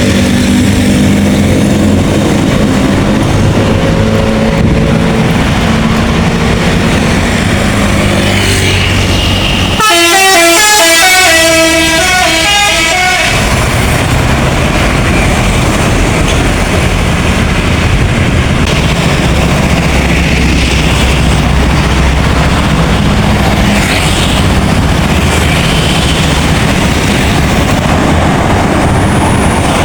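Bus telolet musical air horn playing a fast tune of short notes, stepping up and down in pitch, for about three seconds. Around it runs the steady rumble of a passing bus engine and road traffic.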